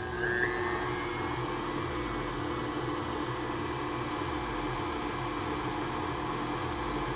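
KitchenAid stand mixer running steadily with its paddle attachment, creaming peanut butter and softened butter: an even motor whir with a constant low hum.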